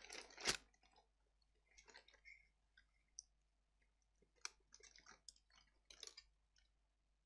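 Faint, scattered small clicks and crinkles of a folded paper card sleeve being unfolded and handled, the strongest about half a second in; otherwise near silence.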